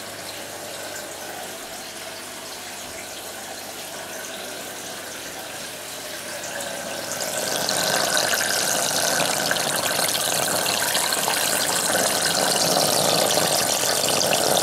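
Water flowing steadily through a DIY aquarium overflow and sump. From about seven seconds in, water pouring down into an open PVC overflow pipe comes up louder and brighter, a steady rush.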